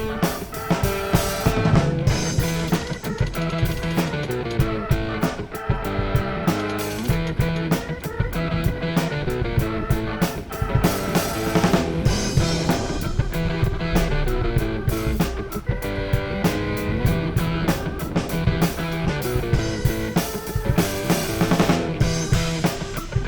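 Music with a steady drum-kit beat and guitar.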